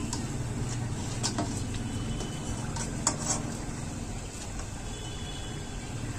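A few light clicks and scrapes of a metal slotted spoon against the kadhai as fried samosas are lifted out of the hot oil, over a steady low hum. The sharpest click comes about three seconds in.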